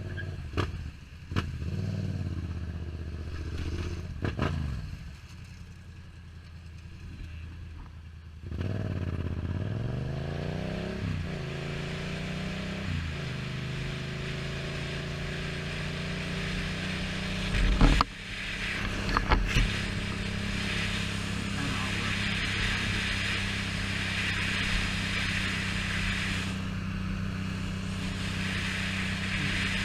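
Yamaha FZ-07's 689 cc parallel-twin engine slowing down, running low for a few seconds, then revving up through two gear changes and settling into a steady pull at speed with wind rush. Two sharp knocks come about two-thirds of the way in.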